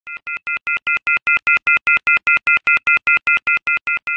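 Rapid electronic beeping, about five short beeps a second, each a steady high tone made of a few pitches at once. It grows louder over the first second or so, then slowly softens.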